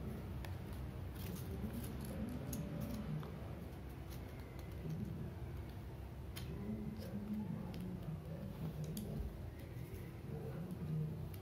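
Faint handling noises of colour-paper cutouts being glued and pressed together: scattered light clicks and paper rustles over a low steady background.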